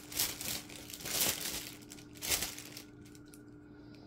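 Small plastic bags of diamond painting resin drills crinkling as they are handled, in three short bursts over the first two and a half seconds.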